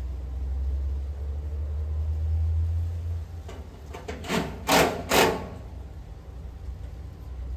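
Work noise at an HVAC condenser unit: three short, loud clattering noises about half a second apart near the middle, after a low steady rumble that stops about three seconds in.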